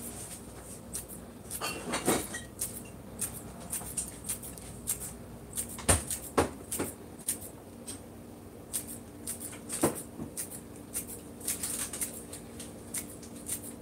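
Scattered light clicks and taps with no steady rhythm, and a few sharper knocks about two, six and ten seconds in.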